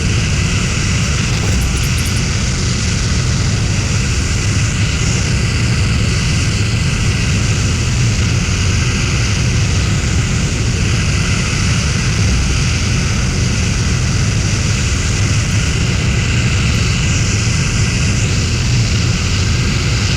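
Aircraft engine noise, loud and unchanging throughout, with most of its weight in the low end and a faint steady whine above.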